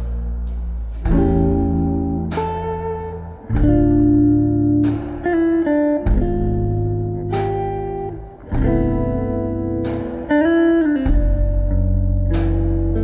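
Jazz guitar trio recording: guitar playing sustained chords and melody over bass and drums, with one guitar note bent up and back a little past ten seconds in.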